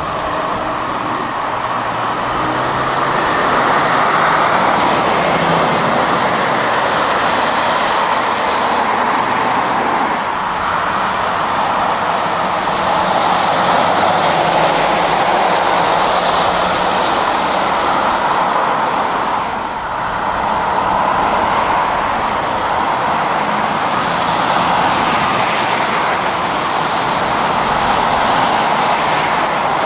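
Heavy diesel lorries and cars driving past close by on a wet road: engines running under a continuous rush of tyre noise, swelling and easing slightly as vehicles come and go.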